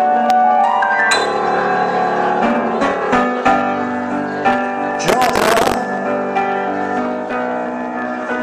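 Live piano playing on a Roland RD-series digital stage piano: slow, sustained chords and notes. A brief voice cuts in about five seconds in.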